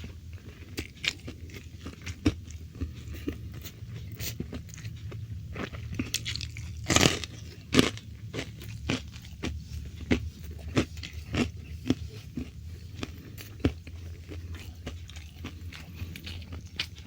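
Close-miked chewing of crisp food: an irregular run of sharp crunches and mouth clicks, the loudest crunches a little before halfway.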